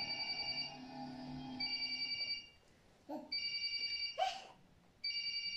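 Telephone ringtone: an electronic ring of a few steady high tones, sounding in four bursts each under a second long, repeating about every second and a half to two seconds.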